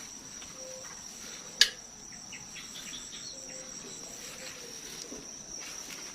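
Steady high-pitched insect chirring, like crickets, with one sharp click about a second and a half in.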